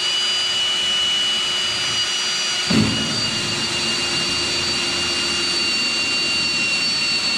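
Kobalt cordless drill spinning a 1-3/8 inch hole saw through a kayak's plastic hull: a steady high motor whine, with a brief low thump and a slight drop in pitch about three seconds in.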